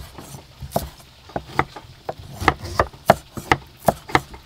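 Cleaver chopping young lotus stems on a round wooden chopping board: about ten sharp knocks of the blade striking the wood, irregularly spaced and coming faster in the second half.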